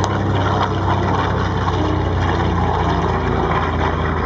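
A Grumman TBM-3 Avenger's twin-row radial engine and propeller droning steadily as the aircraft flies past.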